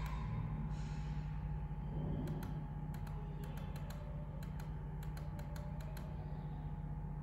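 Small plastic clicks of the Dell P2419H monitor's on-screen-menu buttons being pressed repeatedly, irregularly and sometimes several in quick succession, over a steady low hum.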